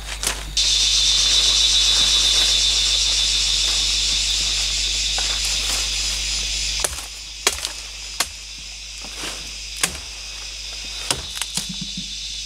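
A loud, steady, high-pitched drone of forest insects that stops abruptly about seven seconds in. Then come scattered sharp knocks and snaps, with a machete chopping at bamboo stems near the end.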